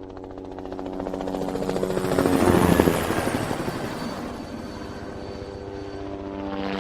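Helicopter flying, its rotor blades chopping rapidly over a steady engine drone, growing louder to a peak about two and a half seconds in and then easing off.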